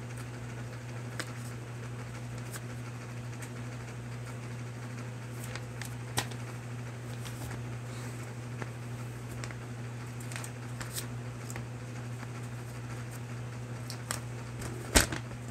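A steady low hum in a small room, with a few soft paper rustles and handling clicks as a sheet of paper is held up and moved; the sharpest click comes near the end.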